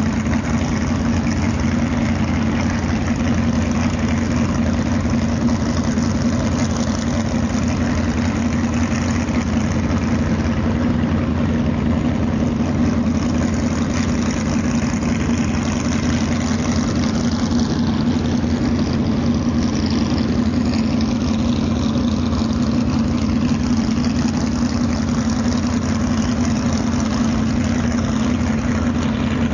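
Jet boat's big-block Ford V8 running steadily at low, near-idle speed, an even drone with no change in pace.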